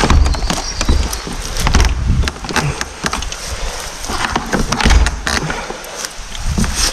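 Clicking and rattling of a plastic door's lever handle and latch, with the door knocking in its frame as it is repeatedly worked and pushed, and dull thumps now and then, about a second or two apart.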